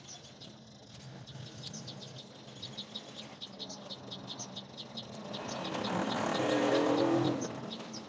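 Repeated high chirping in the background, with a vehicle passing by: its sound swells up from about five seconds in, peaks, and fades away shortly before the end.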